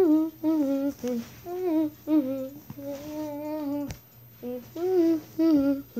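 A person humming a wandering tune in short phrases without words, with a single sharp click about four seconds in.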